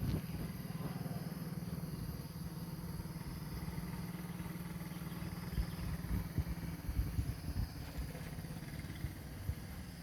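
An engine running steadily, with irregular low thumps about halfway through.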